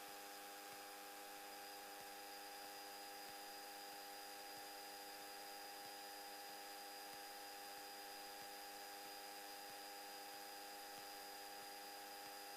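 Faint, steady electrical hum and hiss on the aircraft's radio/headset audio line, with a few fixed tones held unchanged throughout. No engine sound comes through.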